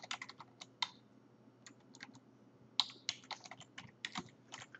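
Typing on a computer keyboard: a quick run of keystrokes in the first second, a pause, then a second run from just under three seconds in.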